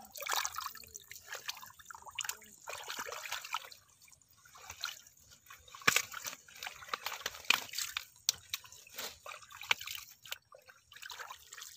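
Hands groping and sloshing through shallow muddy water and mud, with irregular splashes and drips.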